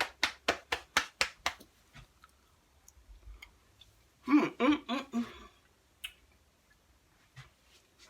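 A rapid run of about eight sharp clicks made by a person, about five a second, ending about a second and a half in. About four seconds in there is a brief wordless vocal sound from a woman, followed by a single click.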